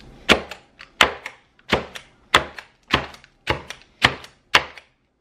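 Spring-loaded stainless steel hand chopper pressed repeatedly down through lettuce onto a wooden cutting board: a steady series of sharp knocks, about one and a half a second, each followed by a lighter click.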